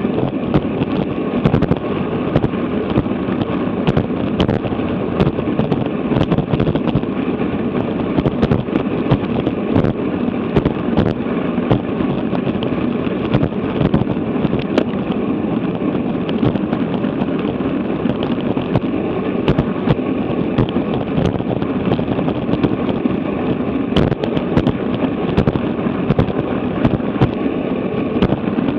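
Wind rushing over the microphone of a bicycle-mounted action camera at about 25 mph: a loud, steady rushing noise full of sharp crackling pops.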